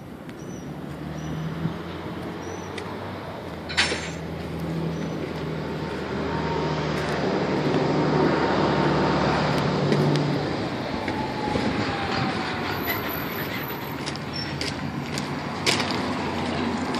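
A motor vehicle's engine running, with a steady low hum that swells to a peak partway through and then eases off; two sharp clicks, about four seconds in and near the end.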